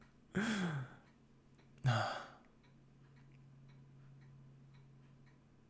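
A man makes two short breathy sighs, each falling in pitch. After them come faint regular ticking and a low steady hum.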